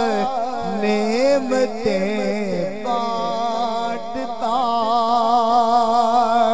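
A song with a solo voice singing a wavering, ornamented melody over a steady drone. About three seconds in it settles into long held notes.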